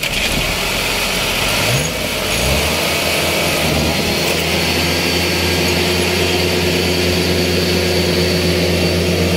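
Farm machinery engine revving up about two seconds in, then held at high, steady revs under load while a rice combine harvester stuck deep in mud is being pulled out.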